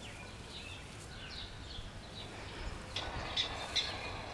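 Prairie dog warning calls played from a phone speaker. A run of falling chirps is followed, from about three seconds in, by a fast series of sharp barks, roughly two or three a second.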